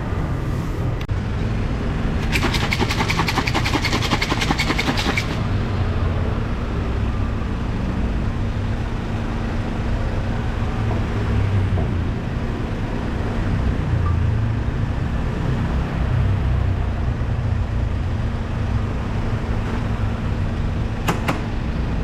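Street traffic noise with a steady engine rumble and a constant hum. A fast run of clicking or clattering lasts about three seconds, starting about two seconds in, and a couple of sharp clicks come near the end.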